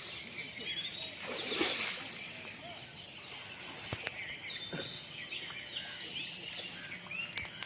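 Outdoor ambience of many small birds chirping in short, quick calls over a steady high-pitched insect drone, with a few sharp ticks.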